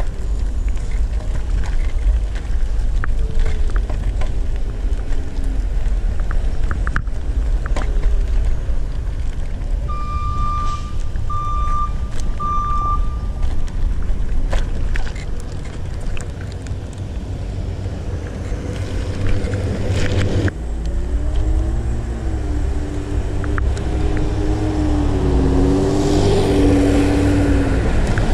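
Riding noise from a Segway Ninebot ES1 electric kick scooter on city streets: a steady low rumble of wind on the microphone and wheels on the road. About ten seconds in come three short high beeps, and near the end a tone wavers up and down.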